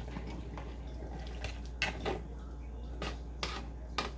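A cooking utensil knocks against a pot of gumbo a few times, in short sharp clacks scattered through the second half, over a steady low hum.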